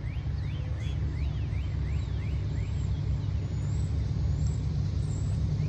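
Low, steady rumble of an approaching train's diesel locomotives, growing slowly louder, with faint high chirps repeating about twice a second.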